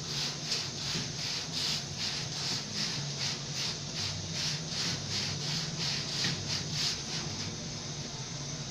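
Rhythmic hissing, scraping strokes, about two to three a second, from chapati dough being worked by hand, over a steady low hum.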